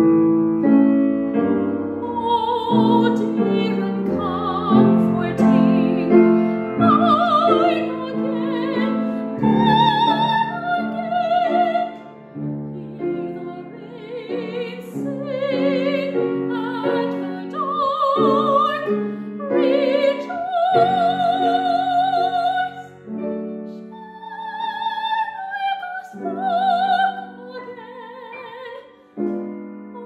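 A female classical singer sings an art song in operatic style with a wide vibrato, over piano accompaniment. The piano plays alone briefly before the voice enters about two seconds in.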